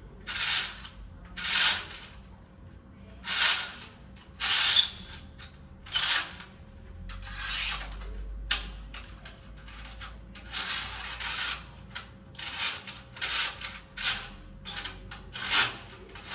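Curtain runners sliding and scraping along a curtain track as the curtain is taken down: a series of short rasping slides, roughly one every second, uneven in spacing.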